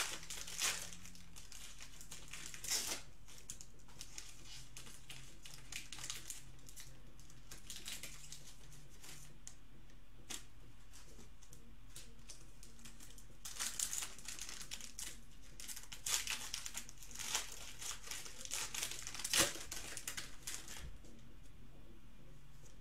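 Plastic trading-card pack wrappers and card sleeves crinkling as packs are opened and cards handled, in scattered short rustling bursts that are busiest about two-thirds of the way through.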